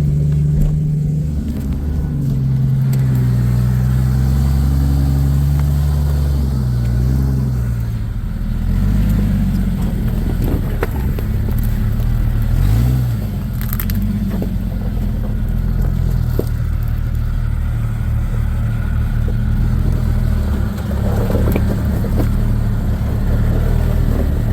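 Off-road vehicle's engine running at low speed, heard from inside the cab, its pitch easing down and briefly rising and falling again as the throttle changes, with occasional knocks and rattles.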